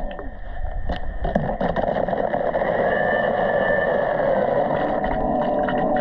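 Dolphin Nautilus CC Plus robotic pool cleaner running in the pool: a steady motor hum whose pitch drifts slightly, with scattered light clicks. It dips briefly at the start, then holds steady.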